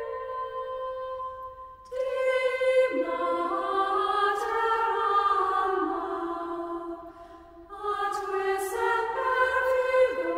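Unaccompanied choral singing: slow, held phrases in more than one voice, broken by two short pauses between phrases, the first about two seconds in and the second about seven seconds in.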